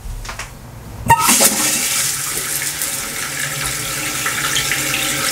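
Toilet tank filling through its fill valve once the water supply is turned on: a steady rush of water starts suddenly about a second in and keeps going.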